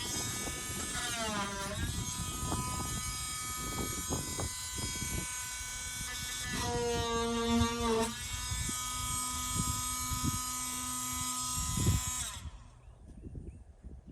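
A small high-speed electric motor whining steadily, its pitch sagging and recovering a few times as though under load, then shutting off about twelve seconds in, followed by a few faint ticks.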